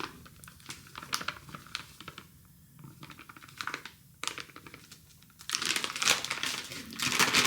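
A bag of vital wheat gluten being handled and crinkled: scattered crackles, then a denser, louder run of crinkling over the last two seconds or so.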